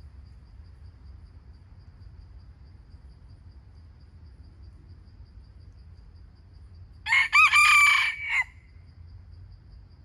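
A wild rooster (junglefowl) crowing once about seven seconds in, a single crow of about a second and a half. Faint high insect chirps repeat steadily, several a second, throughout.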